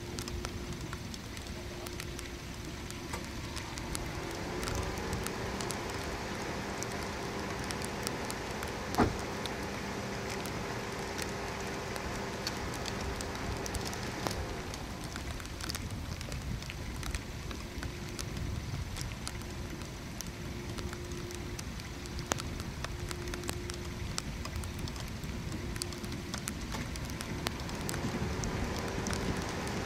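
Steady rain, with many drops pattering close by. A faint steady hum rises in pitch about four seconds in and stops about fourteen seconds in, and one sharp tap stands out about nine seconds in.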